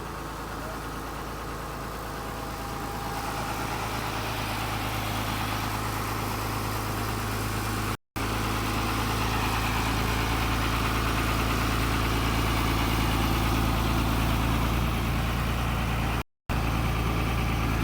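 Diesel engine of a Tata Hitachi 200 excavator running steadily with a deep hum, getting louder about three seconds in as the revs or load rise. The sound cuts out completely for a moment twice.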